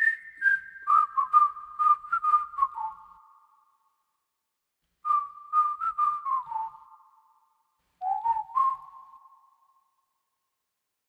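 Whistled melody in three short phrases with pauses between them, the notes trailing off in reverb and set against sharp clicks.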